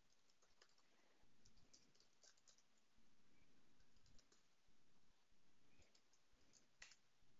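Faint computer keyboard typing: scattered key clicks in irregular clusters, the loudest a single click near the end.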